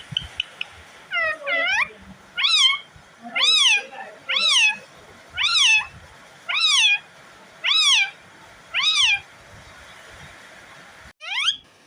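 Pet parrot mimicking a cat's meow: about nine meow-like calls, each rising and then falling in pitch, roughly one a second, with a short rising call near the end.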